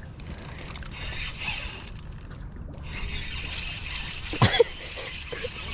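Fishing reel ratcheting and whirring, fast and steady, as a hooked bass is fought on the line.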